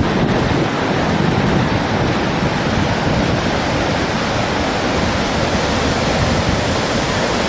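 Flash-flood water rushing in a torrent: a loud, steady rushing noise.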